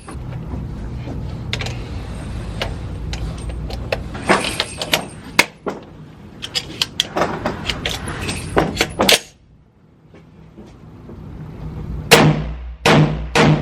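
Gunshots from a 300 Blackout rifle at a shooting range: many sharp shots in quick, uneven strings, a short pause a little after nine seconds, then several very loud shots near the end.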